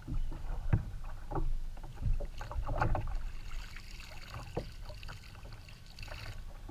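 Handling noise aboard a fishing kayak: a few irregular knocks and bumps against the hull over a steady low rumble.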